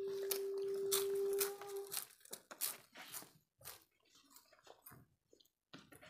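Close-up eating sounds of people eating rice and curry by hand: chewing, with scattered crunches and clicks. A loud steady single-pitched tone holds through roughly the first two seconds, then stops.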